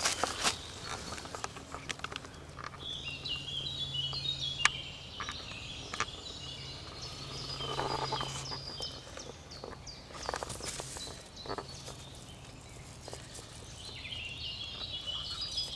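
A songbird singing two phrases of quick descending notes, one a few seconds in and one near the end, over scattered clicks and rustles of twigs and dry leaves being disturbed by someone moving in the leaf litter.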